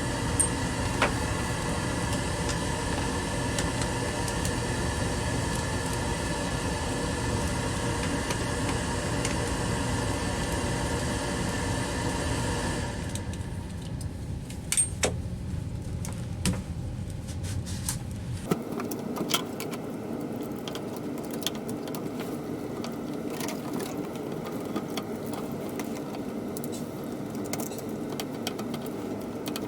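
Scattered metallic clicks and clinks of tools and pump parts being handled during disassembly, over a steady mechanical hum. The hum drops away abruptly about 13 seconds in and a lighter, different steady hum takes over about 18 seconds in.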